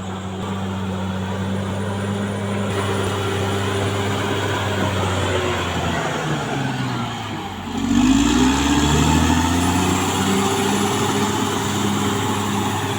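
Caterpillar D6R XL bulldozer's diesel engine running. Its pitch sags from about six seconds in, then climbs and gets louder at about eight seconds.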